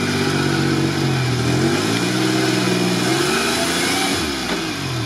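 Engine of a lifted Toyota 4Runner revving up and down several times under load as the truck strains to climb its front wheel off a pile of logs.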